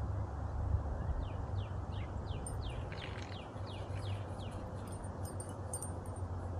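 A bird chirping in quick runs of short falling notes, about three a second, over a low steady rumble.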